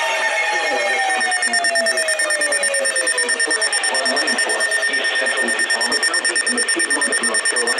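Electronic alarm and siren tones: a siren winding down, its pitch falling over the first few seconds, over a steady high tone, with a rapid pulsing beep of about nine or ten beats a second starting a second or so in.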